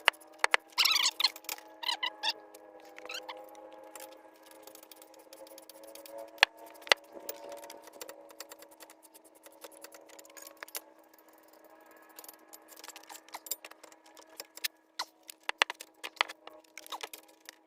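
Irregular sharp metallic clicks of a hand ratchet and socket tightening the hub assembly's mounting bolts on a Chevy Silverado 2500HD, over a steady hum.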